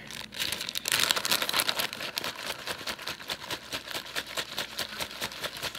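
Clear plastic MRE beverage bag crinkling rapidly as it is shaken and worked by hand to mix the liquid inside, loudest in the first couple of seconds.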